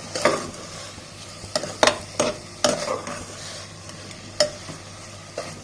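Chicken pieces and onions sizzling in hot oil as a spatula stirs them, with several sharp scrapes and taps of the spatula against the pan.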